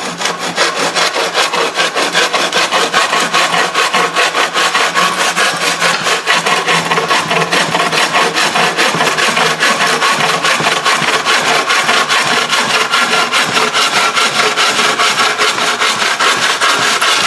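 Bow saw cutting through a wooden board with fast, even back-and-forth strokes.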